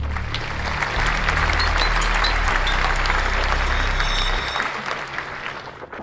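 Applause-like dense clapping over background music with a steady low bass, fading away over the last second and a half.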